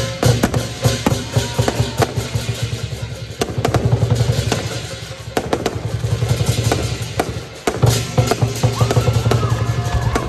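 Chinese lion dance percussion: a large drum beaten in rapid rolls with sharp cymbal clashes, the loudness swelling and dipping several times.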